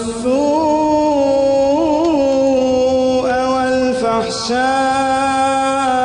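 A male reciter chanting the Quran in a slow, melodic style. He holds long drawn-out notes with small ornamental turns, with a short break about four seconds in before the voice resumes.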